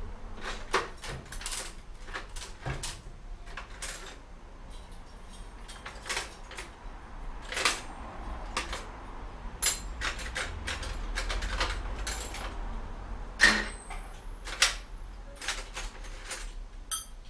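Metal hand tools clinking and clattering as they are rummaged through in a workbench drawer, with irregular sharp clicks and knocks and one louder knock near the end.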